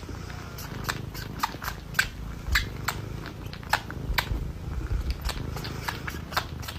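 A cat chewing crunchy food: irregular sharp crunches, two or three a second, over a low steady rumble.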